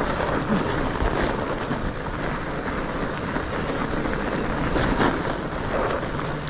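Fat bike rolling downhill on a snowy, rutted singletrack: a steady rough rumble of the studded tyres on packed snow, with the bike rattling and wind hitting the action camera's microphone.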